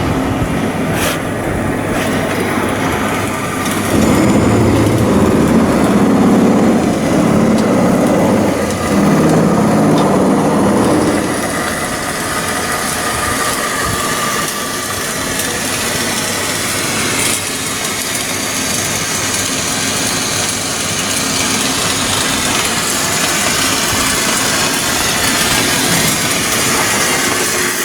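Machinery running with a steady engine-like noise, louder for several seconds from about four seconds in.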